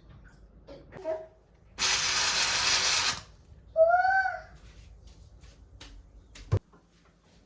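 A loud burst of hissing noise lasting about a second and a half, then a short high cry from a toddler that rises and falls, and a single sharp click near the end.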